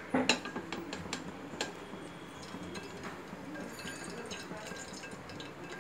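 Metal utensil clinking against a steel cooking pot several times in the first two seconds, the loudest just after the start, as ghee is ladled into the oil.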